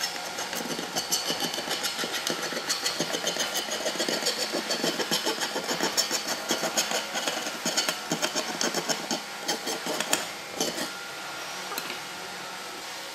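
A hand blade scraping and cutting along a thin metal panel edge in quick, rapid strokes, several a second. The strokes stop about ten seconds in, leaving a steady faint hiss.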